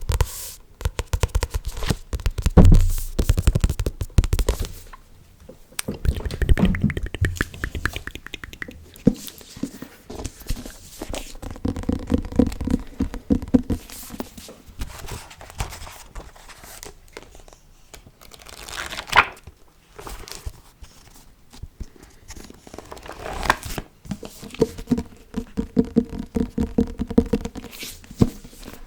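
Close-miked ASMR triggers: dense, irregular clicking, crackling and rustling from hands and mouth, with a few brief louder swishes along the way.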